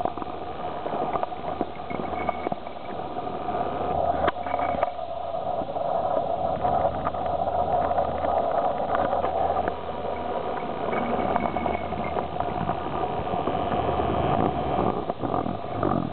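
A steady engine drone that holds one pitch, with a few faint knocks.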